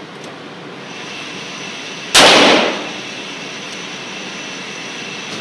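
A single revolver shot about two seconds in, with a short echo off the walls of the indoor range.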